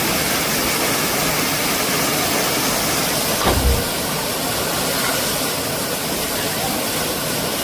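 Steady rush of a waterfall, an even noise, with a brief low thump about three and a half seconds in.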